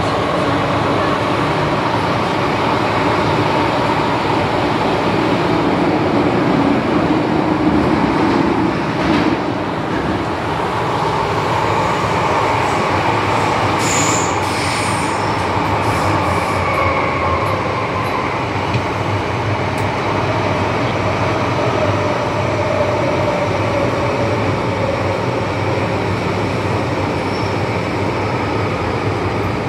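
MTR M-Train metro car running through a tunnel, heard from inside the car: a steady rumble from the wheels and running gear, with the traction motors' whine gliding up and down in pitch. A brief high squeal about fourteen seconds in.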